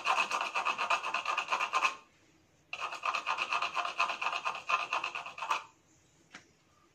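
A plastic submersible-pump stage part being rubbed hard against a rough plastered wall in rapid back-and-forth strokes, in two bouts with a short pause between. The part is slightly too thick and is being ground down to fit.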